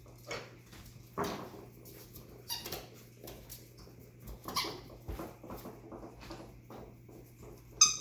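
Chihuahua puppies playing: scuffling with small squeaks and yips, and one sharp, high yip near the end, the loudest sound.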